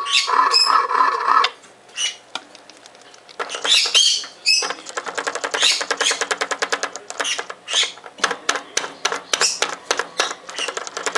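Quaker parrot working at a plastic toy bus: a dense run of rapid plastic clicks and taps, with short high chirps and squawks from the bird now and then. A snatch of the bus's electronic tune plays at the start and stops about a second and a half in.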